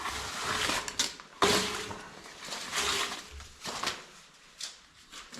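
Handling noises from working on a re-covered seat: irregular rustling and scraping of fabric, with a sharp knock about a second and a half in.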